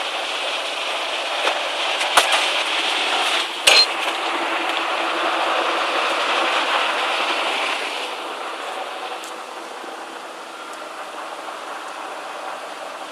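Amphibious excavator running steadily, with two sharp metallic clanks about two seconds and three and a half seconds in. The running sound drops in level about eight seconds in.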